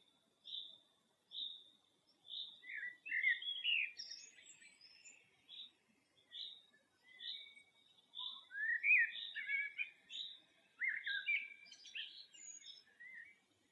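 Birdsong: one bird repeats a short high chirp about once a second, while others sing louder, fast-changing warbling phrases in two spells, from about two seconds in and again from about eight seconds.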